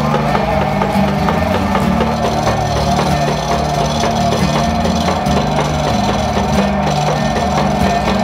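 Background music with a beat and a bass line of held low notes that change every second or so.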